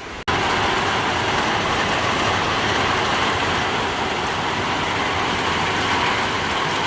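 Heavy downpour: loud, steady rain, cutting in abruptly just after the start.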